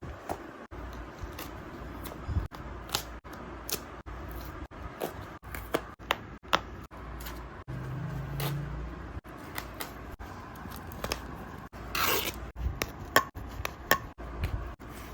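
Hand tools working on shoe leather: quick irregular snips and clicks, like scissors cutting, with scraping between them and a longer hissing scrape about twelve seconds in. The sound is broken by several abrupt short gaps.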